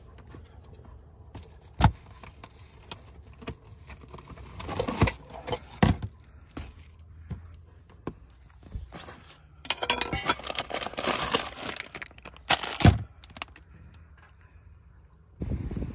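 Household camping gear being rummaged through in clear plastic storage bins: plastic lids and containers clunking and scraping, with several sharp knocks and a longer stretch of crinkling plastic packaging about two-thirds of the way through.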